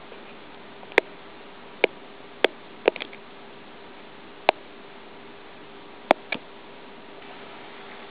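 About seven sharp, separate clicks at irregular intervals, two of them in a quick pair near the middle and another pair late on, over a steady faint hum and hiss.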